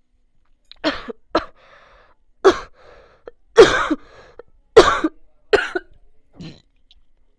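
A person coughing, a run of about seven sharp coughs over some six seconds, the loudest in the middle and the last one weaker.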